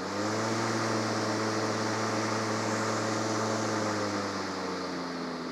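Milwaukee M18 Fuel battery push mower's brushless motor and blade running with a steady hum. Right at the start its pitch steps up as the boost button holds the blade at higher speed, as used for mulching leaves or heavy grass. Near the end it starts to wind down.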